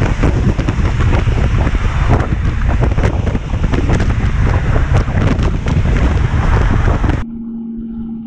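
Heavy wind buffeting on the microphone of a motorcycle riding at highway speed, gusting unevenly. Near the end it cuts off abruptly to a much quieter steady hum.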